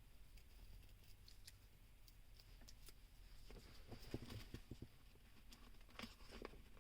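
Faint scratching and light clicks of a sharp knife cutting through a paper car air freshener, with a run of small taps and knocks from about halfway through.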